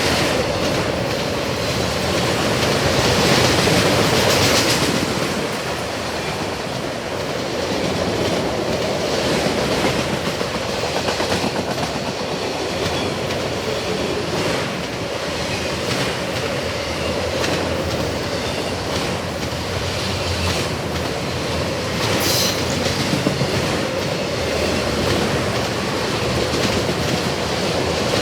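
Empty autorack freight cars of a CSX train rolling past, a steady rumble with the wheels clicking rhythmically over the rail joints. A brief high squeal cuts in about three-quarters of the way through.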